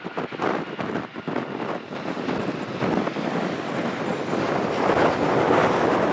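Jet engines of a Boeing 757-300 rolling out just after touchdown on a rain-soaked runway, mixed with strong gusty wind buffeting the microphone. The sound grows louder in the second half.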